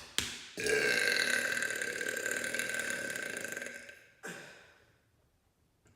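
A man's long, loud, deliberate burp, held at a steady pitch for about three and a half seconds, starting about half a second in.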